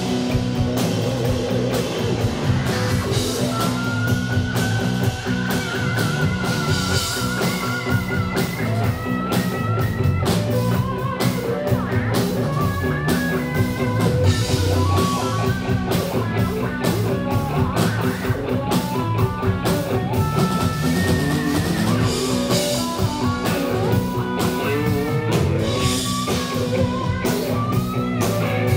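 Rock band playing live: electric guitars, bass guitar and drum kit, with a lead melody line on top.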